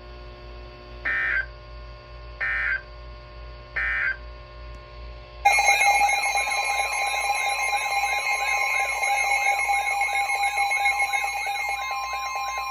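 Emergency Alert System signals: three short, buzzy digital data bursts about a second and a half apart, the SAME end-of-message code closing the warning. About five and a half seconds in, a loud alert tone starts, steady tones with a warbling tone over them, heralding the next warning.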